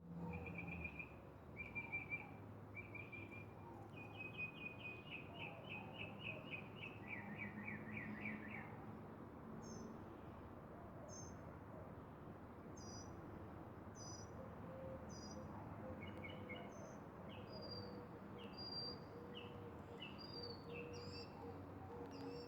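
Songbirds singing: rapid trilled phrases for the first nine seconds or so, then short high chirps repeated about once or twice a second, over a faint low steady hum.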